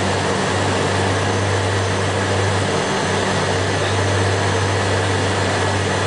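Steady cabin noise of a Cessna Citation I on final approach: its two Pratt & Whitney JT15D turbofans and the rushing airflow, a constant low drone under a hiss.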